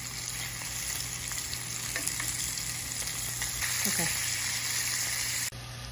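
Mahi fillet strips sizzling in hot avocado oil in a nonstick pan, with light clicks of tongs against the pan as the pieces are flipped. The sizzle drops suddenly near the end.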